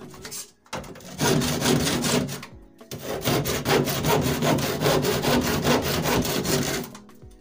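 Hand saw cutting through a plaster of Paris ceiling in quick back-and-forth strokes, trimming back the broken edge of a hole. The strokes ease off about a second in, pause briefly near three seconds, and stop just before the end.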